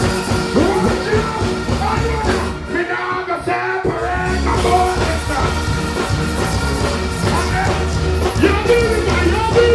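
Live dancehall music: a bass-heavy riddim with artists deejaying and singing over it on microphones. The bass and beat cut out for about a second, two and a half seconds in, then come back.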